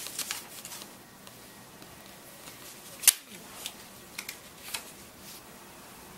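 A pen being pushed through a small sheet of paper, with the paper crinkling in the hands. One sharp crackle about three seconds in is the loudest sound, followed by a few softer crinkles.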